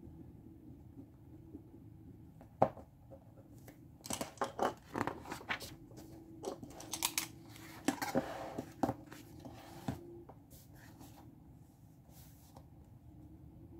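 Sheets of a printed paper handout being handled and turned over: a run of crinkles and rustles through the middle, with one sharp tap about two and a half seconds in.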